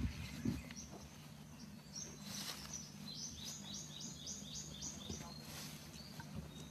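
A bird calling outdoors, a quick run of about nine high chirps in the middle, with a few scattered chirps before it. Two soft rustles and a low thump near the start are mixed in.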